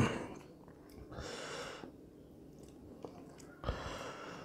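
Two faint, breathy exhalations through the nose, one about a second in and a sharper one near the end, with a few soft clicks from lettuce leaves being handled.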